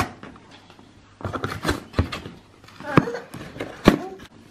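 Cardboard book mailer being opened and handled: rustling cardboard with several sharp snaps and taps, the loudest about three and four seconds in.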